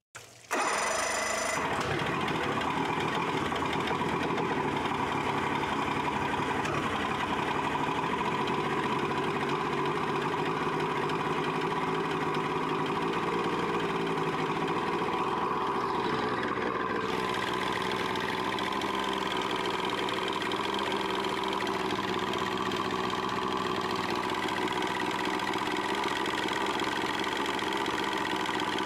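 1984 Johnson 70 hp three-cylinder two-stroke outboard motor cranked by its electric starter, catching almost at once and then running steadily. It has an internal rattle that the owner takes for piston skirt slap or a failing rod bearing.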